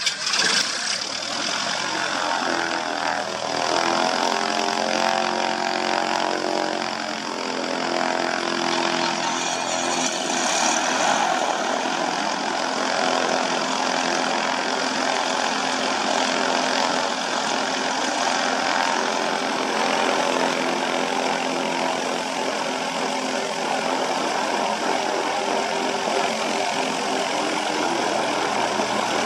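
A light aircraft's piston engine and propeller running, its pitch shifting during the first ten seconds and then holding steady.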